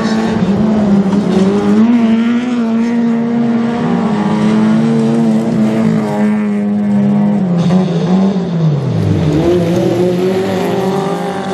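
Autocross racing car's engine running hard at high revs on the dirt track. Its pitch holds fairly steady, drops about eight to nine seconds in, then climbs again.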